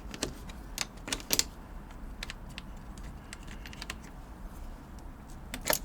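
Small metallic clicks and taps of a spanner loosening the positive battery terminal clamp on a VAZ 2107. There are a handful of irregular clicks in the first second and a half, then a pause, then another couple near the end.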